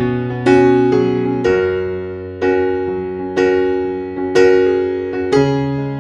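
Background music: slow electric piano chords, struck about once a second and left to die away.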